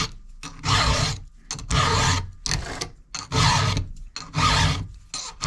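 A hand file rasping across the cutter teeth of a Husqvarna 372XP chainsaw chain as it is sharpened. The file goes in separate forward strokes, about one a second, with short pauses between them.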